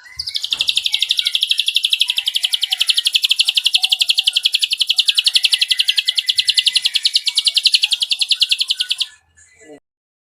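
Ashy drongo singing one long, rapid trill of evenly repeated high notes, about ten a second, that runs without a break and stops abruptly about nine seconds in: the drawn-out 'nembak' burst copying a cililin's song.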